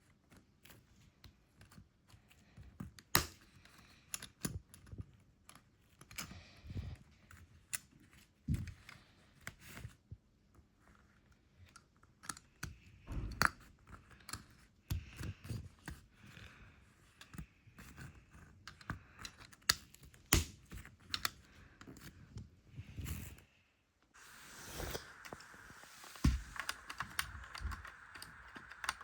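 Small plastic LEGO bricks clicking and rattling as they are handled and pressed together, in irregular sharp clicks and small knocks. About 24 seconds in, a steady hiss comes in beneath the clicks.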